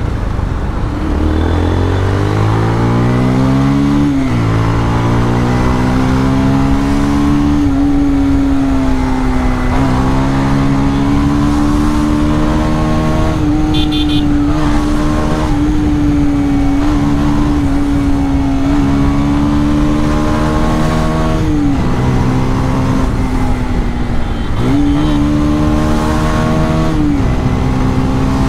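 Motorcycle with a modified exhaust accelerating. The engine note climbs steeply for about four seconds, drops sharply at an upshift, then holds steady at cruising speed, with a few brief dips and a short re-rev near the end. Road and wind noise run underneath.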